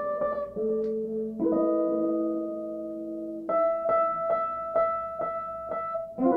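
Live jazz trio music: slow, sustained chords on clean-toned electric strings, changing twice, then one chord struck again and again about three times a second over the last few seconds.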